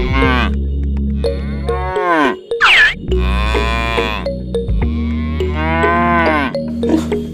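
Cattle mooing, several long calls that fall in pitch, with a short high warbling call about three seconds in, over background music with a steady low bass and a regular beat.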